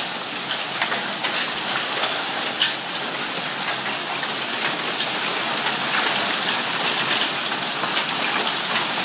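Hailstorm: small hailstones, about a quarter inch, falling with rain onto a lawn. A steady dense hiss dotted with many small sharp ticks.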